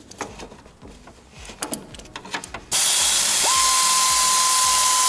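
Air-powered hand tool on a compressed-air hose starting up about two-thirds of the way in: a sudden loud hiss of exhaust air, with a steady high whine that rises quickly and then holds one pitch as the motor spins up. Before it, a few light clicks of handling.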